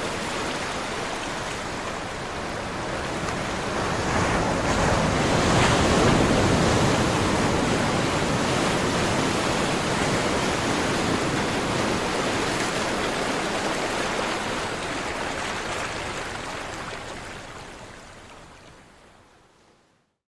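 Sea waves washing on a shore: a rushing surf that swells about five seconds in, then slowly dies away and fades out near the end.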